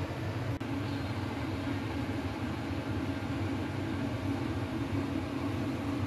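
Steady low hum of a running machine with a faint hiss above it.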